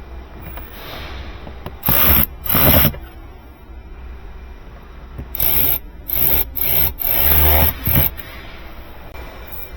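Cordless drill-driver running in a series of short bursts, driving screws back into the car's door panel: two bursts about two seconds in, then a quicker run of five bursts a few seconds later, the longest near the end.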